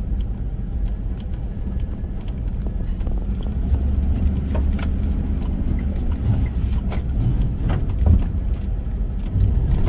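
Car driving slowly onto a ferry's car deck: a steady low rumble of engine and tyres, with several sharp knocks as it rolls from the loading ramp onto the deck's steel plates.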